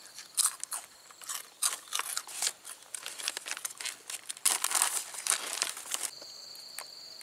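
Crunchy packaged snacks being bitten and chewed, with the crinkle of foil snack packets being handled. About six seconds in, the crunching stops and a steady high insect trill is left.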